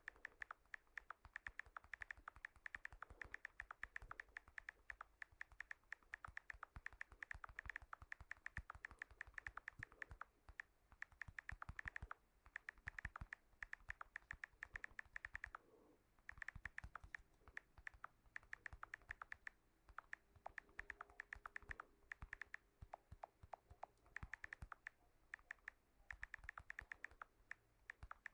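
Typing on a smartphone's on-screen keyboard: rapid runs of faint, sharp key clicks, broken now and then by short pauses.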